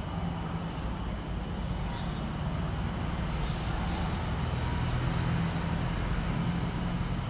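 Steady low outdoor rumble, a little louder around the middle.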